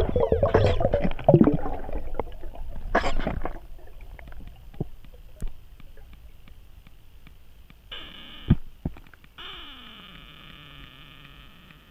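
Underwater sound picked up by a spearfisher's camera. Loud, busy water noise fills the first two seconds, with a short burst about three seconds in, then quiet crackling. Near the end come two stretches of steady tones, the second sliding down in pitch.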